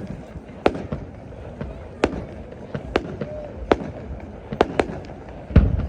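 Fireworks going off: a string of sharp bangs and cracks, roughly one a second, with a deeper, louder boom near the end.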